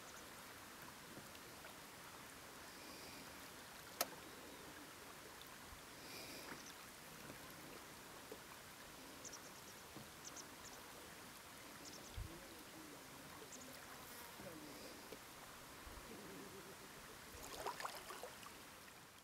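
Faint, steady outdoor background hiss with a single sharp click about four seconds in and a brief burst of crackling near the end.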